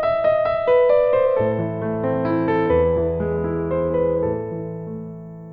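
Short excerpt of classical music in an electric-piano sound: a melody of quick notes over held bass notes, fading out near the end.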